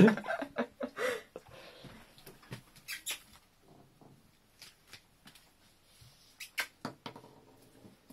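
Scattered light clicks and taps on a ceramic tile floor from a Westie puppy's claws and the horse chestnuts it plays with, in small clusters with quiet gaps between.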